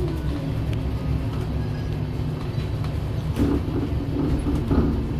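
Cabin sound of a 1999 Volvo city bus under way: a steady low engine drone and road noise, with a few light rattles and ticks from the body.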